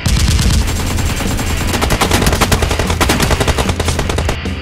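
Rapid automatic gunfire sound effects, many shots a second in a continuous rattle, dubbed over a toy blaster fight. The shooting stops just before the end as rock music comes in.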